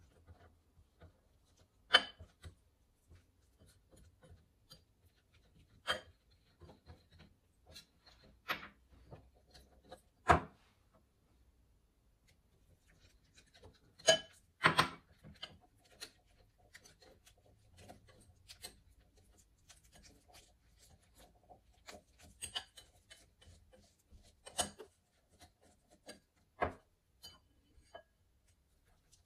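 Wire whisk stirring a thick cornstarch paste in a glass bowl: soft scraping, broken by scattered sharp clinks of metal and glass against the bowl.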